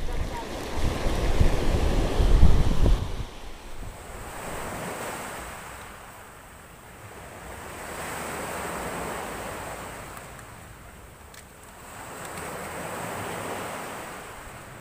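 Open-sea waves breaking and washing up the shore, the surge swelling and fading about every four to five seconds. Wind buffets the microphone with a loud low rumble for the first three seconds.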